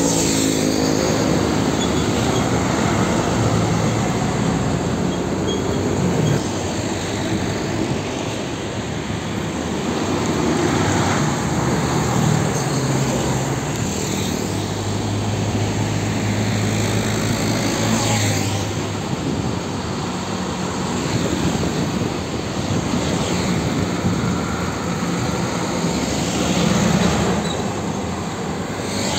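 Heavy diesel trucks passing one after another on a busy road. Engines drone and tyre noise swells and fades as each goes by.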